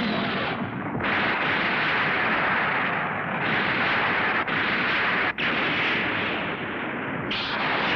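A dense, continuous run of explosion sound effects with crackling blasts. New bursts set in about a second in, at about three and a half seconds, and again near the end.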